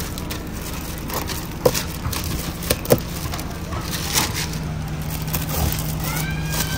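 Clear plastic protective film being peeled and pulled off a new car's door trim panel, crinkling and crackling, with two sharper snaps about a second and a half and three seconds in.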